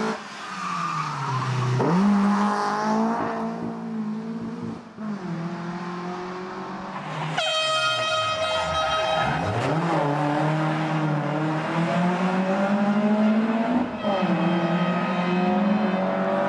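Volvo rally car's engine revving hard, climbing and dropping through gear changes as it passes on a tarmac stage. About halfway through a horn blares for about two seconds.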